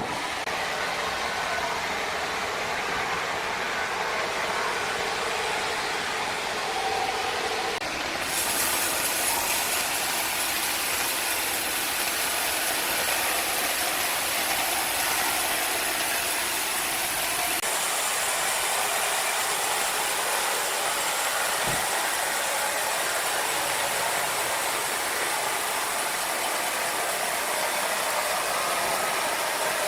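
Sawmill machinery running with a steady noise; a brighter hiss joins about a quarter of the way through and carries on.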